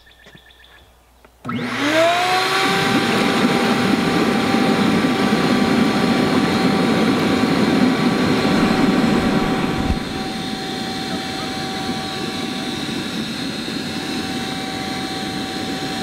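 Shop vac run as a blower switches on about a second and a half in, its motor whine rising quickly to a steady pitch. It blows air through a PVC manifold at the bottom of a water-filled plastic barrel, so the water churns with bubbles. About ten seconds in it becomes a little quieter and stays steady.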